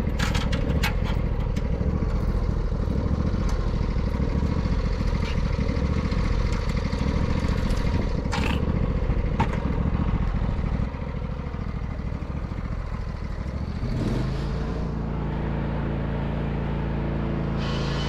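John Deere L120 lawn tractor engine running as it tows a brick-weighted plug aerator across the lawn, a rough steady rumble with a few clicks and rattles. About fourteen seconds in, the sound changes to a smoother, steadier hum.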